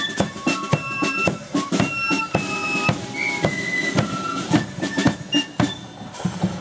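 Marching flute band playing: flutes carry a held, high melody over steady snare and bass drum beats.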